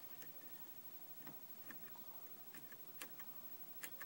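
Faint, irregular clicks and ticks of a lock pick and tension wrench working the pins of a 5-pin Kwikset pin-tumbler cylinder during single-pin picking.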